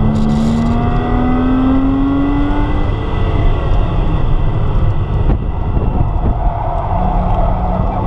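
Porsche Cayman's mid-mounted flat-six engine pulling hard, heard from inside the cabin, its note rising in pitch over the first few seconds, with a brief break in the sound about five seconds in before it settles to a steadier note. Tyre and wind noise run underneath.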